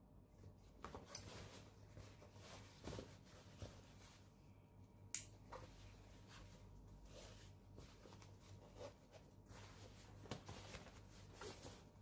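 Faint rustling and clicking as a Victorinox Altmont Active Compact backpack's fabric, straps and metal strap adjuster are handled, with one sharp click about five seconds in, over a faint steady hum.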